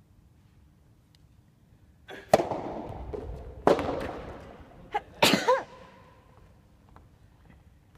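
Soft tennis rubber ball being struck by rackets and bouncing in a rally: four sharp, echoing hits in the hall, the loudest about 2.3, 3.7 and 5.3 seconds in. A short sound that bends in pitch comes with the last hit.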